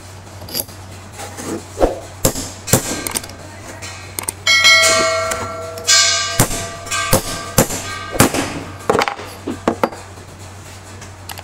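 Hammer blows on a metal tube driving a new ball bearing onto an electric motor's rotor shaft: about fifteen sharp metallic knocks in irregular groups, a few in the middle ringing on with a bell-like tone.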